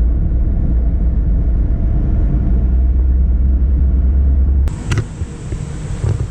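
Car driving on the road, heard from inside as a steady low road-and-engine rumble. About three-quarters of the way through it cuts off suddenly and gives way to a quieter outdoor ambience, with a click and a steady high-pitched whine.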